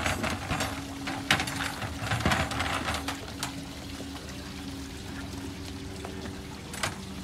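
Harbour water sloshing and splashing around small wooden boats as one is hauled alongside another, with a few sharp splashes in the first three seconds and another near the end. A steady low hum runs underneath.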